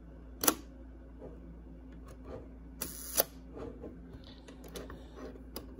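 Canon IIB rangefinder's cloth focal-plane shutter fired on the Bulb setting. There is a click about half a second in as it opens, and a louder double click about three seconds in as it closes. Faint small mechanical clicks follow.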